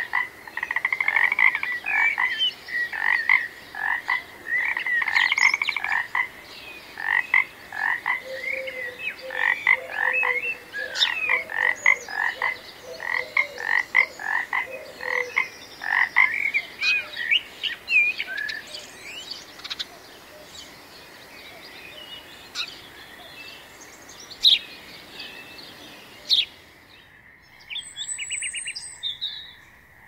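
Frogs calling in a chorus: many short croaks repeated close together, thinning out after about sixteen seconds; near the end, a few high chirps.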